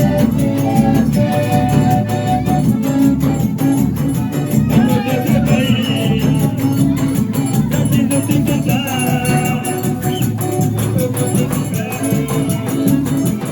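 Forró music playing with a steady, fast percussion beat and a voice singing over it.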